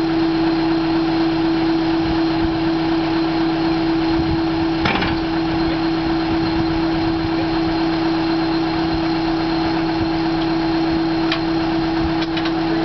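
Drill rig's engine running steadily at a constant speed with a strong even hum, and a single sharp metallic knock about five seconds in, with a few lighter clicks near the end.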